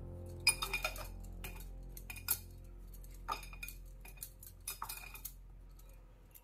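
Bangles and a glass mixing bowl clinking in scattered sharp clicks as hands gather soft dough in the bowl.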